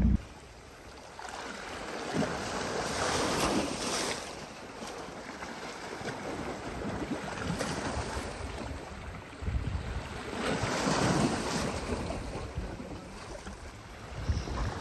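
Wind on the microphone together with sea waves washing in, swelling a couple of times.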